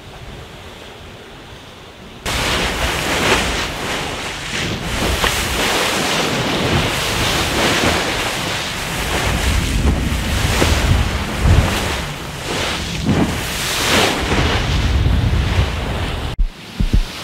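Wind buffeting the microphone and water rushing and spraying along the hull of a Volvo Ocean 65 racing yacht sailing fast through open sea, in gusty surges; it jumps louder about two seconds in. It cuts off suddenly near the end, followed by a couple of low thumps.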